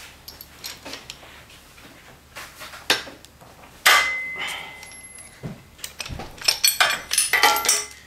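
Metal-on-metal clicks and clanks from a clamp-style press and socket being tightened against a seized transmission shift linkage spring pin. One sharp clank about four seconds in rings briefly, and a run of quick clicks comes near the end; the pin does not budge.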